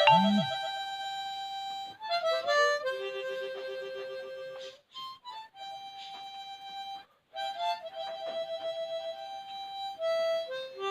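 Instrumental break in a song: a harmonica plays a solo melody of long held notes linked by short quick runs, with a couple of brief pauses.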